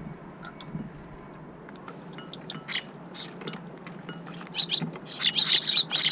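Eurasian tree sparrows chirping: a few chirps near the middle, then a quick, busy run of loud chirps through the second half. Before that, faint light clicks of the birds pecking at their feed.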